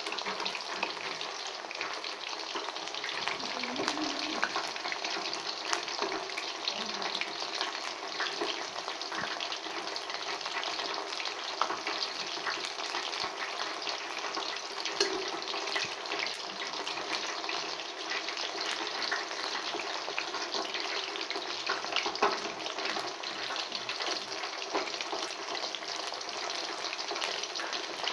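Chicken pakoras deep-frying in hot oil in a steel wok: a steady sizzle dotted all through with small crackles and pops.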